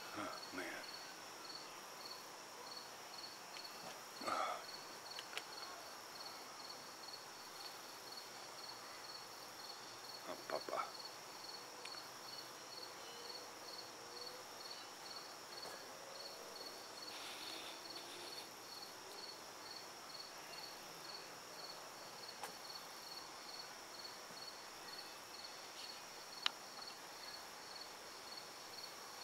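Insects chirping in a steady evening chorus: a continuous high buzz with a regular chirp repeating a few times a second. A couple of brief faint noises stand out about 4 and 10 seconds in.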